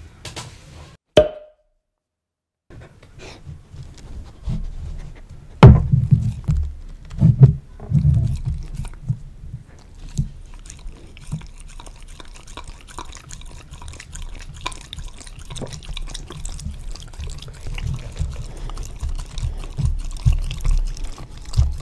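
A Samoyed lapping plain yogurt from a drinking glass, close to the microphone: a dense run of wet tongue smacks and slurps. A few louder thumps come in the first several seconds.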